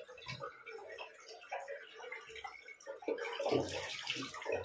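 Hands splashing water onto the face at a sink during a rinse after a shave, with scattered small drips and knocks. The splashing is heavier about three seconds in.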